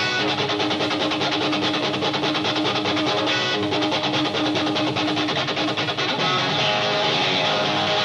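Live blues-rock band playing an instrumental passage: a Stratocaster-style electric guitar through a Marshall amplifier, over bass guitar and drums.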